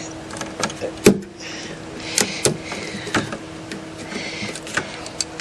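Irregular clicks and knocks of hand work on a car's front end, parts and fasteners being handled and pried loose, with heavy breathing close to the microphone and a steady faint hum underneath.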